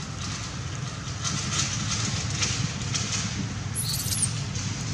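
Steady low rumble of wind noise on the microphone, with one brief, very high, thin squeal from an infant macaque about four seconds in.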